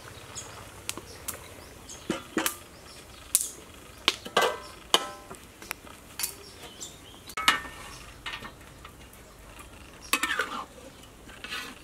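Metal spatula clinking, knocking and scraping against a wok as stir-fried fish is dished out onto a serving tray: irregular sharp metallic clinks, a few ringing briefly, the strongest about four and a half, seven and a half and ten seconds in.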